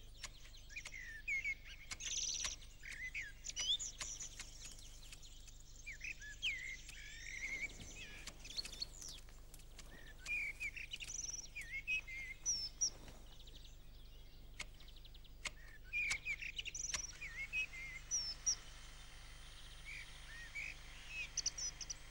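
Small birds chirping throughout, with scattered sharp clicks of hand shears clipping a boxwood topiary.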